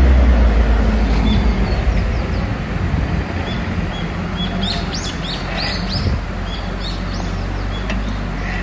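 Diesel engine of a loaded Mitsubishi Fuso Canter dump truck running as it pulls away, its low hum loudest at first and fading over the first few seconds as it drives off. Birds chirp repeatedly through the second half.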